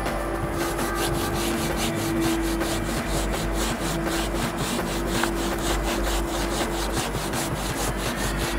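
A cloth rubbed quickly back and forth over a car's side window glass, several even strokes a second, scrubbing at dried polyurethane mounting-foam spatter with solvent.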